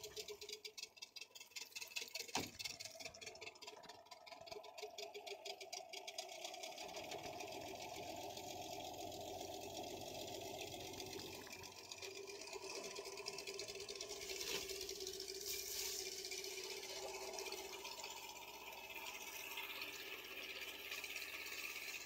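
Suzuki outboard motor running on a small boat: a fast rattling beat for about the first six seconds, then a steadier hum as the boat moves under way.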